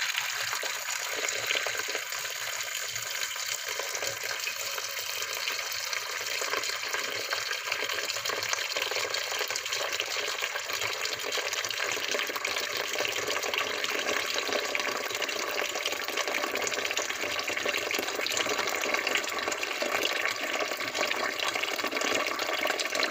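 Tap water running in a steady stream into a metal cooking pot holding raw lamb pieces, filling the pot.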